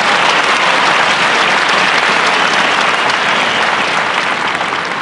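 Arena audience applauding, beginning to die down near the end.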